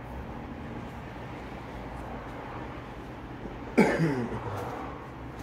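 A person coughs once, about four seconds in, the sound falling in pitch as it fades, over a steady low background hum.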